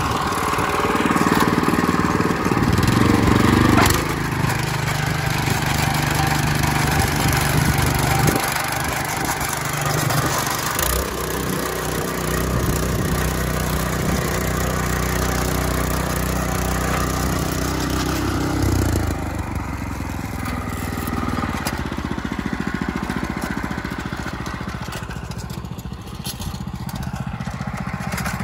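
WEIMA WM500 walk-behind tractor engine running steadily under plowing load in heavy clay soil. Its engine note shifts several times.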